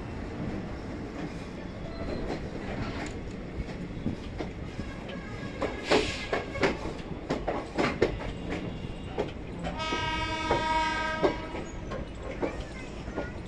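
Passenger train moving off, with a steady rumble and the wheels clicking over rail joints and points. About ten seconds in, a train horn sounds once for about a second and a half.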